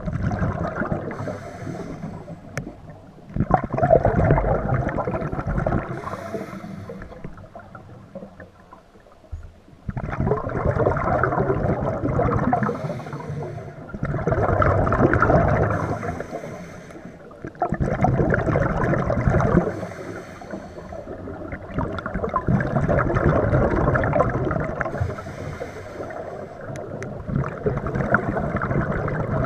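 Scuba breathing through a regulator underwater: inhalations alternate with gurgling rushes of exhaled bubbles, in cycles every few seconds.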